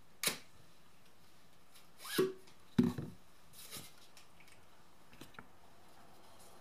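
A poster's packaging being handled and opened: a few short rustling and scraping sounds, the loudest a little under three seconds in.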